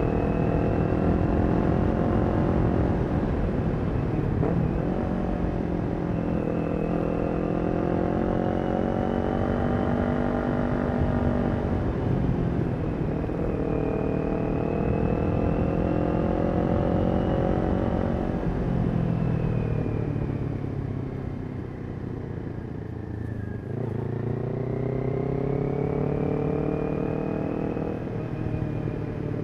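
Kawasaki Ninja 400's parallel-twin engine through a Yoshimura exhaust, on the move. The engine note climbs and drops back several times as it shifts up, eases off for a few seconds about twenty seconds in, then pulls again.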